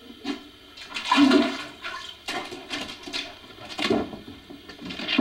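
Dog with its head inside a toilet bowl, splashing and sloshing the water in irregular bursts.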